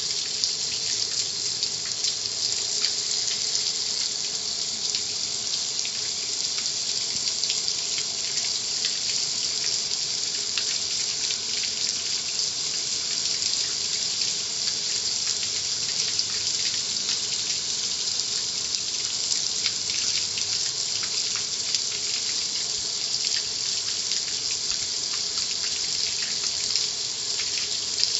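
Car wash water spray hitting a surface, a steady unbroken hiss with fine spatter, and a faint steady hum beneath.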